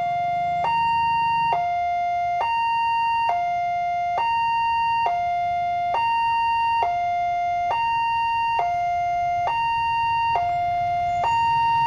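Electronic two-tone warning siren of a railway level crossing, sounding continuously as a train approaches. It alternates evenly between a lower and a higher tone, switching just under once a second.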